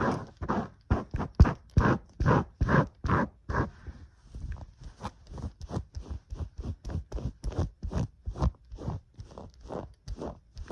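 Fast, rhythmic scratching and scraping strokes close to the microphone. They are louder and a little slower for the first few seconds, then lighter and quicker, about three to four strokes a second.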